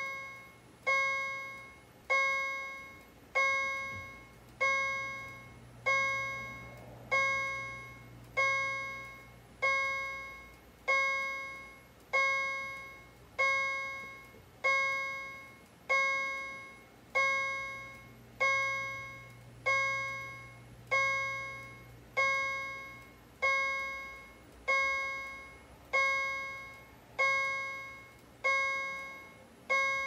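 Wheelock chime strobe sounding its soft, repeating fire-alarm chime: a single bell-like tone struck a little under once a second, each strike fading before the next.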